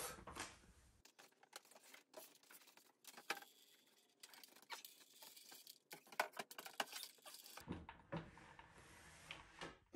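Near silence, broken by faint scattered clicks and rustles of handling.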